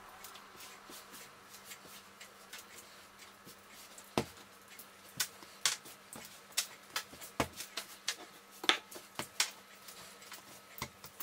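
Hands kneading soft cookie dough on a countertop. It starts with faint pressing and ticking, then from about four seconds in turns to irregular sharp taps and slaps as the dough is pushed and turned against the counter.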